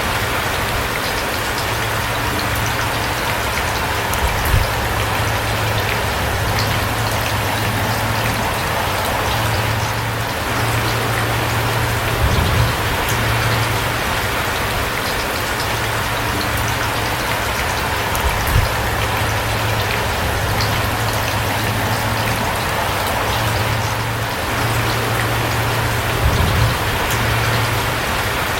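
Steady rain falling in a dense, even patter, with a low rumble underneath that comes and goes and a few brief low thumps.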